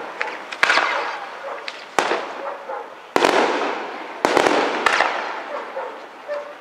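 Aerial firework shells bursting: about five sharp bangs, roughly one every second, with a quick cluster of cracks about two-thirds of the way through, each bang dying away over about a second.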